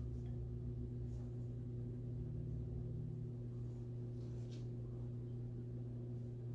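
Steady low humming drone with a few even overtones, a sustained gong- or singing-bowl-like backing tone. Faint brief rustles come about a second in and again past four seconds.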